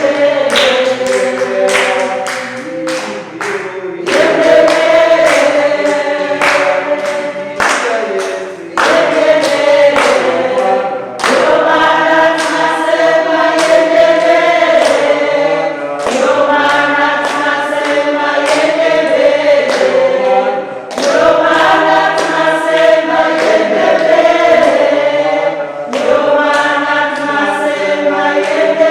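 Church choir singing a gospel song in harmony, in phrases a few seconds long.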